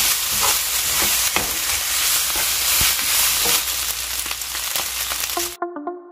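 Soy-marinated pork bulgogi sizzling in a frying pan, stirred with a wooden spatula that clicks against the pan now and then. The sizzling cuts off suddenly about five and a half seconds in, giving way to light keyboard music.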